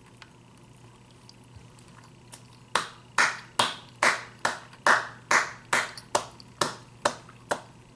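A person clapping their hands, about a dozen quick, even claps that start about three seconds in and stop shortly before the end.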